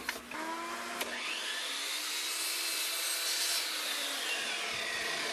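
Electric power saw spinning up, cutting a small piece of wood, then winding down with a falling whine near the end.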